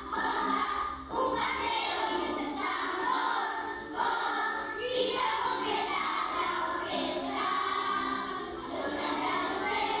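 A choir singing a Christmas carol (villancico) with musical backing.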